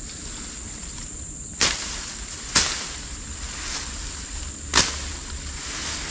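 Three sharp chops of a machete (parang) cutting through branches and undergrowth, spaced unevenly over a few seconds, over a steady high-pitched insect drone.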